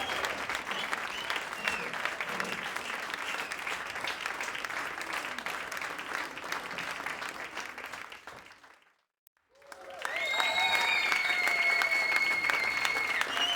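Crowd clapping and cheering, fading out about two-thirds of the way through to a brief silence. It then starts again loudly with a long, high, steady whistle held for about three seconds over the applause.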